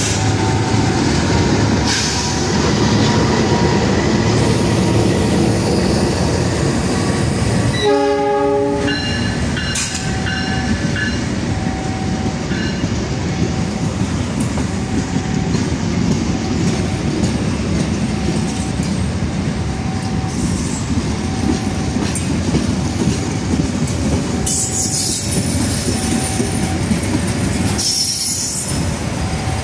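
Passenger train hauled by a KAI diesel locomotive rolling slowly past on the rails, held to about 20 km/h by a track-work speed restriction, with a steady rumble of engine and wheels. The locomotive horn sounds once, briefly, about eight seconds in.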